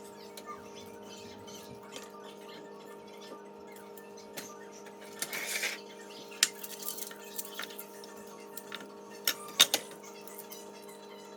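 Kitchen utensils knocking and clinking against cookware: a short scrape about halfway through, then sharp knocks, with three close together near the end, over a steady hum.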